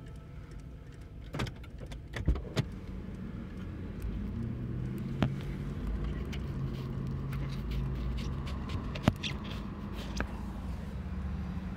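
Low steady hum of a car idling, heard from inside the cabin, with a few sharp clicks scattered through it.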